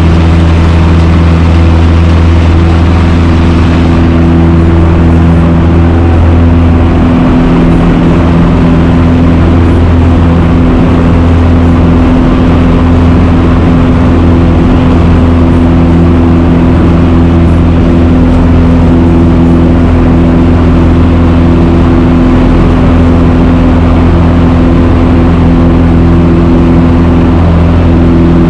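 A Cessna 150's four-cylinder piston engine and propeller running steadily, as heard inside the small cockpit.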